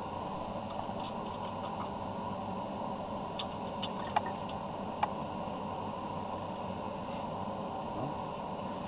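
Steady background hiss with a few faint clicks a few seconds in.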